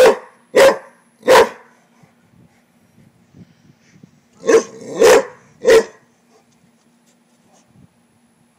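A Rottweiler barking at a frog hidden at the foot of a wall: two quick runs of three loud barks each, the first at the very start and the second a little past the middle.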